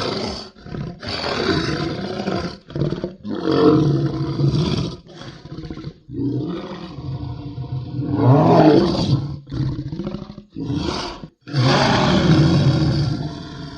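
Monster sound effects: a string of deep, rough roars and growls, one after another with short breaks, the longest and loudest about two-thirds of the way in and near the end.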